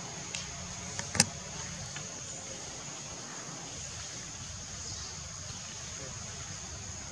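Steady high-pitched drone of insects in the forest, over a low rumble, with one sharp click about a second in and a couple of fainter ticks just before it.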